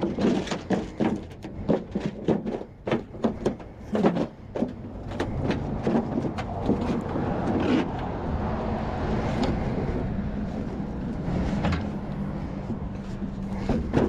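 Sheet-metal ductwork banging and clattering as it is handled and crushed down into a trailer load of scrap sheet metal. There are a run of sharp metallic clanks in the first few seconds, then steadier scraping and crumpling of metal over a low hum.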